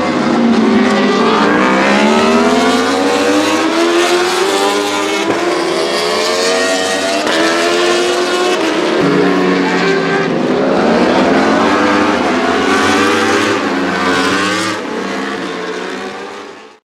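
Yamaha YZF-R1 World Superbike racing motorcycle's four-cylinder engine with Akrapovic exhaust at high revs on track, its pitch climbing and dropping again and again as it accelerates and shifts. The sound falls away near the end and cuts off.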